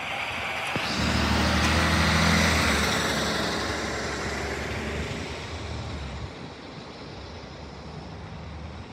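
Semi truck driving past with a low diesel engine rumble and tyre noise. The sound swells to its loudest about two seconds in, then fades away.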